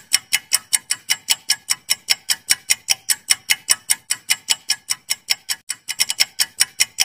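Clock-ticking sound effect for a quiz countdown timer: fast, even, sharp ticks, about five a second.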